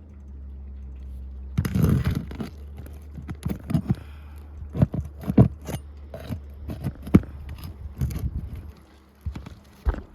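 Irregular scrapes and knocks of hands and tools working on asphalt roof shingles, beginning about a second and a half in after a low steady hum.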